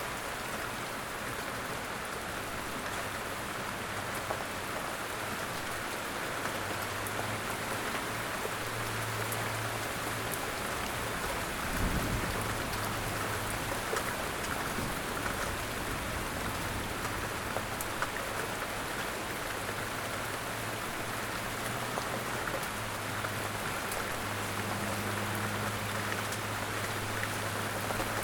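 Steady outdoor rain falling, with scattered sharper drips. There is a single low thump about twelve seconds in, and a faint low hum comes and goes.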